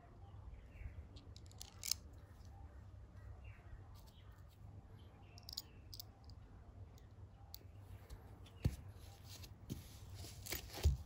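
Faint handling sounds of a steel bolt being threaded by hand into a pot-style fishing magnet: light metallic clicks and scrapes over a low hum, with a sharper knock about nine seconds in and another near the end.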